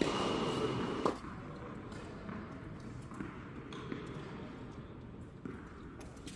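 Tennis ball bouncing on a hard indoor court between points: a few faint knocks echoing in a large hall, with one sharper knock about a second in, over low crowd murmur.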